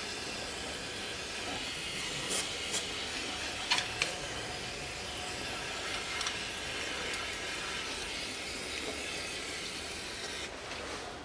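Aerosol can of carburetor cleaner spraying in a steady hiss onto the rear axle differential and skid plate, washing off spilled gear oil. A few light clicks come about two to four seconds in, and the spray stops near the end.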